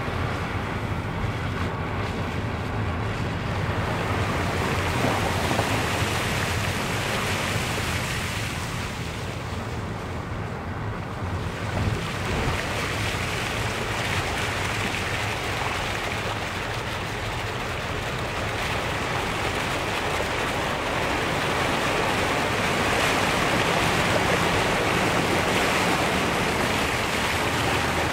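Car driving through shallow floodwater on the road: a steady rushing hiss of tyres throwing up water, over the low hum of the engine and road noise.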